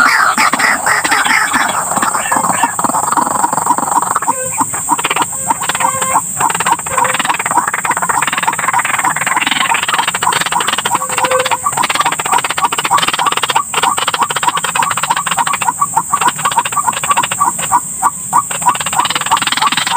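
White-breasted waterhens (ruak-ruak) calling, a loud, dense run of rapid repeated croaking notes that keeps going throughout, with a steady high hiss behind it.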